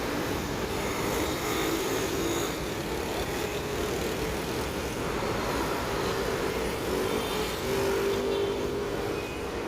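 Steady road-vehicle and traffic noise, with a low engine hum that rises and falls slightly.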